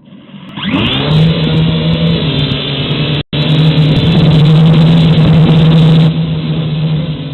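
Syma X5HW quadcopter's small electric motors and propellers spinning up with a rising whine, then running at a steady loud pitch, heard close up from the camera mounted on it. The sound cuts out for an instant about three seconds in and eases slightly near the end.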